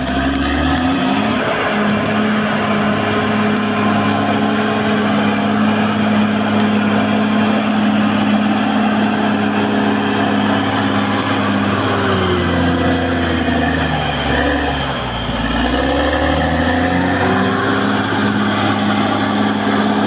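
Caterpillar D6R XL bulldozer's diesel engine running steadily as the dozer works its blade through loose dirt. About twelve seconds in the revs sag, then climb back a few seconds later.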